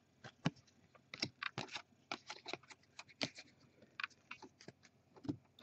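Faint, irregular light clicks and taps of trading cards being handled and set down on a desk.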